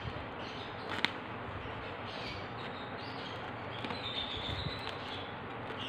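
Faint handling of a spiny durian husk being pried apart along its seams with a knife, with one sharp click about a second in, over a steady background hiss.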